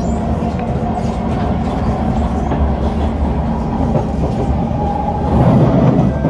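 Cabin running noise of a Kawasaki C151 metro train on the move: a steady rumble of wheels on rail with a faint clickety-clack and a few steady tones above it. The rumble swells louder near the end.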